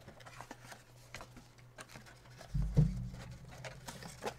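Light rustling and small clicks of trading-card packs and packaging being handled, with one dull thump about two and a half seconds in.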